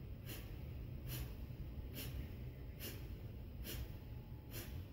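Kapalbhati breathing: short, forceful exhalations through the nose, about one a second, at a slow beginner's pace.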